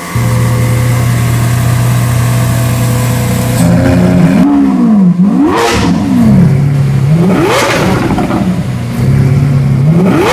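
Lamborghini Aventador LP700-4 Roadster's V12 engine idling steadily, then revved in several quick throttle blips from about four seconds in, each rising sharply in pitch and falling back to idle.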